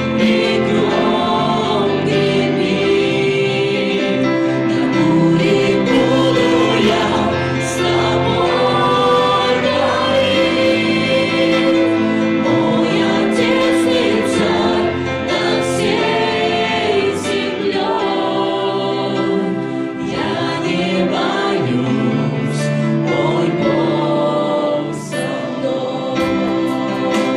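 Worship band singing live: several women's and a man's voices singing together into microphones over held chords on a Korg electronic keyboard.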